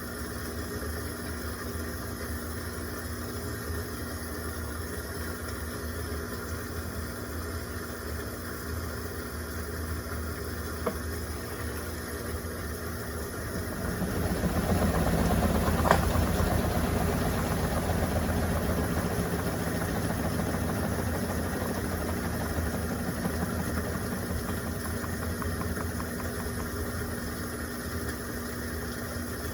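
Electrolux Turbo Compacta LTC07 washing machine running with a steady motor hum and vibration. About halfway through it gets louder, with a click at the peak, then slowly eases back down.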